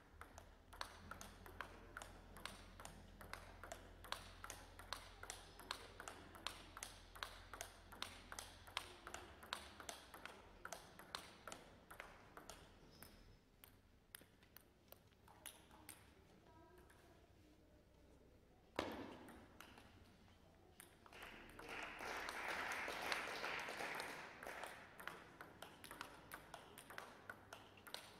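Table tennis balls clicking sharply against bats, table and floor in a sports hall, at first in quick runs of about three a second, then more sparsely. Past the middle comes a single louder knock, and a little later a few seconds of noise louder than the clicks.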